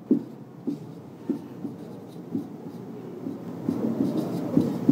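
Marker pen writing on a whiteboard: a run of short strokes and taps as a word is lettered in capitals, coming faster in the second half.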